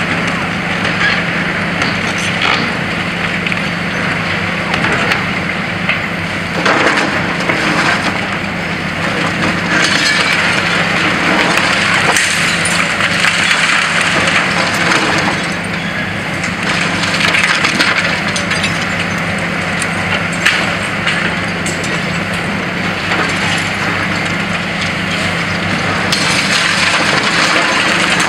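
High-reach demolition excavators breaking up a concrete-framed building: irregular crunching and cracking of concrete and falling rubble, louder at several moments, over a steady engine drone and hiss.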